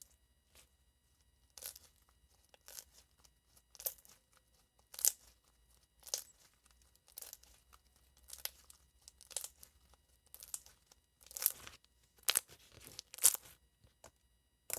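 Soft, jiggly purple slime being squeezed and poked by hand, giving short crackly, sticky squelches at roughly one a second. The loudest squelches come in the last few seconds.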